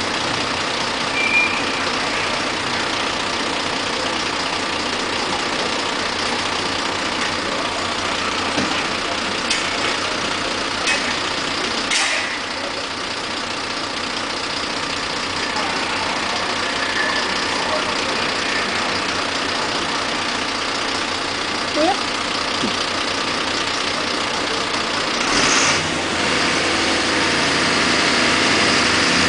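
Truck engine idling steadily, with a few short knocks and clicks about ten seconds in and a brief louder burst near the end.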